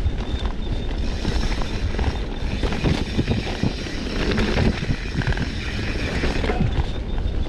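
Wind buffeting the microphone over a steady low rumble, with a shifting hiss above it.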